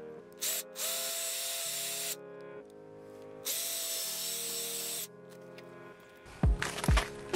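Cordless drill running in two bursts of about a second and a half each, boring pilot holes into a wooden stump, with a steady motor whine under the noise of the bit; background music plays throughout. Two loud knocks near the end.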